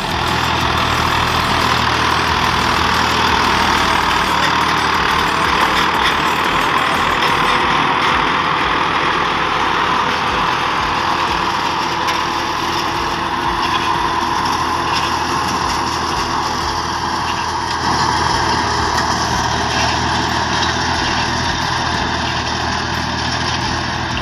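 Swaraj 963 4x4 tractor's diesel engine running steadily under load in medium gear, driving an 8-foot Landforce super seeder's rotor through the soil.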